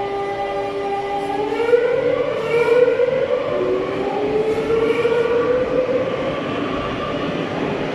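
Madrid Metro Serie 8400 CAF electric train pulling away from the station: its traction motors whine in a stack of tones that rises in pitch in two sweeps as it accelerates, over the rumble of the running train.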